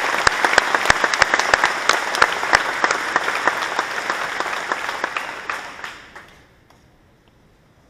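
Audience applauding, with a few sharp claps close by standing out, dying away about six seconds in.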